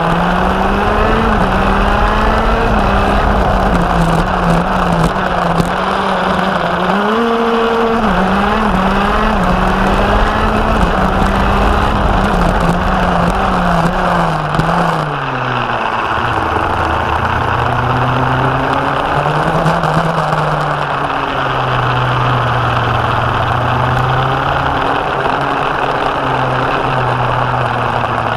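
Go-kart engine heard from on board, running at high revs with the pitch rising and dipping. About halfway through, the revs drop steeply as the kart slows, then hold lower and steadier, with wind and road rush throughout.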